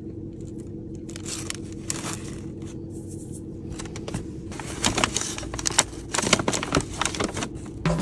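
Paper dessert box and clear plastic pastry wrapper rustling and crinkling as they are handled, the crackles coming thicker in the second half, over a steady low hum.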